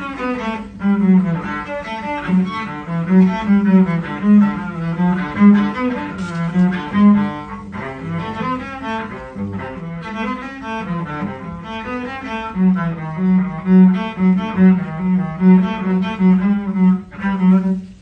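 Solo cello bowed, playing a melody of many changing notes, with stretches of quick repeated notes in the lower register.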